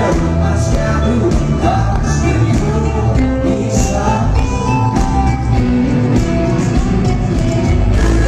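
Rock band playing live, electric guitars and drums at full volume, recorded on a phone from within the audience.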